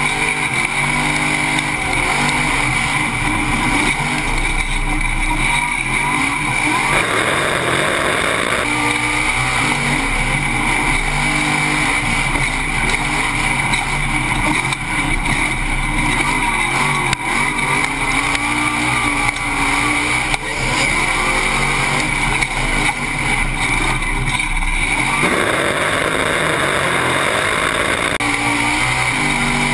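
Off-road race truck engine running hard at racing speed, its revs rising and falling through the corners and jumps. It is mixed with wind and dirt noise, and twice the rushing noise swells for a second or more.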